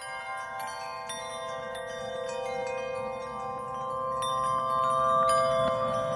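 Background music of chiming, bell-like struck tones over sustained notes. It starts abruptly and grows louder over the second half.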